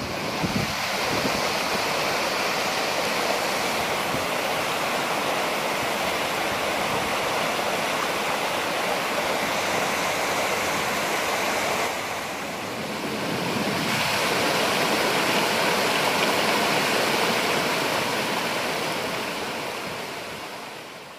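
Muddy floodwater from heavy rain rushing and splashing down a small rocky cascade, a steady rush that dips briefly about twelve seconds in and fades out near the end.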